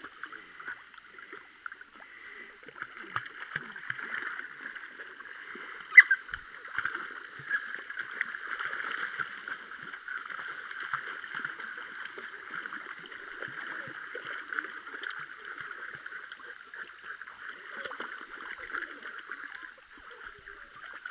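Water splashing and rippling as young puppies paddle and wade through a shallow creek, over a steady hiss, with one sharp knock about six seconds in.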